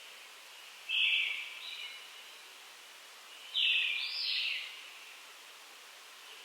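Brown-headed thrush singing: two short song phrases a couple of seconds apart, the second longer and in two parts, over a faint steady background hiss.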